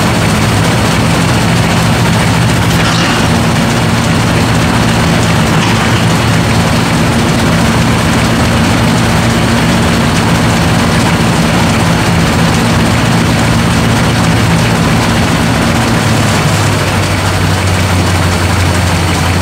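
Large antique tractor engine running steadily after a cold start, with a heavy, even note. Its note changes near the end.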